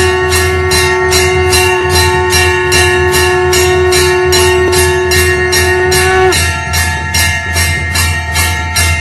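Conch shell (shankh) blown in one long steady note that stops about six seconds in, over temple bells rung rapidly and evenly, about three strikes a second. A low steady hum runs underneath.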